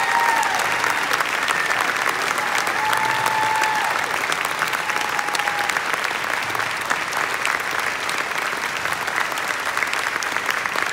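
Audience applauding steadily, a dense crackle of many hands clapping, with a few long held calls rising over it in the first half.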